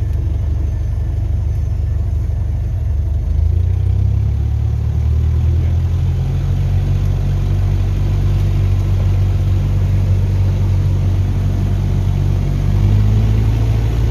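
Light aircraft's engine running with a steady low drone, which steps up in loudness about three and a half seconds in and again near the end.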